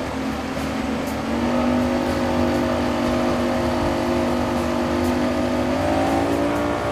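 Motorboat engine running under way, its pitch stepping up about a second and a half in and again near six seconds as it speeds up, over a steady rush of water.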